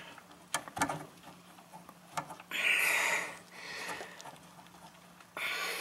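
Small handling noises at a brake master cylinder: a few light clicks in the first second, then short bursts of rustling hiss, one about two and a half seconds in and another near the end.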